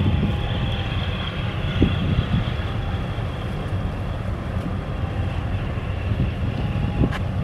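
Steady wind buffeting the microphone as a low, even rumble, with no distinct events.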